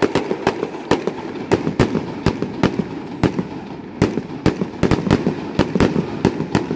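Aerial fireworks bursting overhead: a rapid, irregular run of sharp bangs and crackles, about three to four a second.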